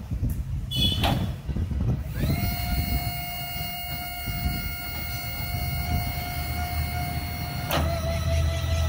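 Linde L14i electric pallet stacker's hydraulic lift pump motor starting with a rising whine and running at a steady high whine as the forks lift. A brief falling squeal comes about a second in, and a sharp click near the end.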